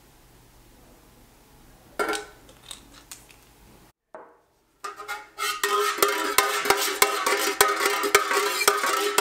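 Light clicks and knocks from handling a glass dropper bottle of liquid candle dye and a metal pouring pitcher, about two seconds in. From about five seconds in, background music with plucked strings takes over and is the loudest sound.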